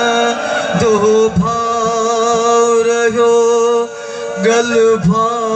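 A male reciter singing a noha, a Muharram lament, into a microphone over a loudspeaker, drawing out long held notes with a slight waver, with a brief breath about four seconds in before the next line.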